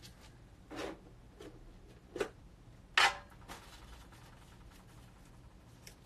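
Short rustling and knocking handling sounds from a tin box of folded paper draw slips being picked up and opened. There are about six of them, and the sharpest comes about three seconds in.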